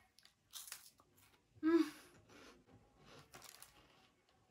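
Faint crinkling of a cookie wrapper and crunching as crisp cookies are bitten and chewed, in a few short spells, with a brief vocal sound a little under two seconds in.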